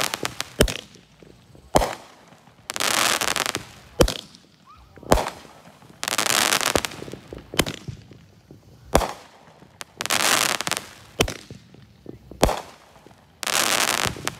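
Consumer firework cake (a "bone breaker") firing: a series of sharp bangs every one to two seconds, alternating with hissing, crackling bursts that each last about a second.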